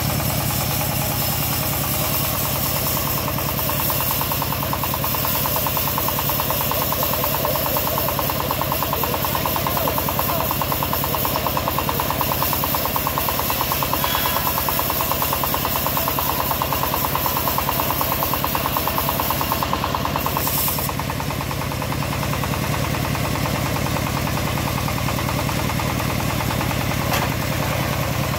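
Stationary diesel engine running steadily with an even chugging beat, driving a homemade bandsaw mill whose blade hisses as it rips lengthwise through a log. The hiss and loudness dip briefly about twenty seconds in.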